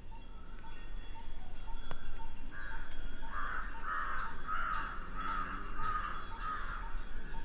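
Soft background music of evenly paced, chime-like notes, with a crow cawing about seven times in quick succession in the middle.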